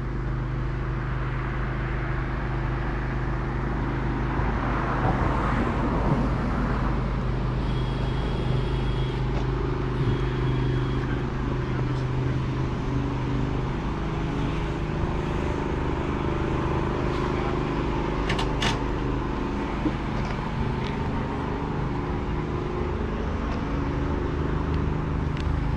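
A car being driven: steady engine hum and road noise, with two short high beeps near the middle.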